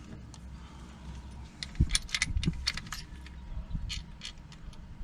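Small metal clicks and clinks of lock cylinder parts and keys being handled while a rim cylinder is rekeyed, busiest a couple of seconds in, over a steady low hum.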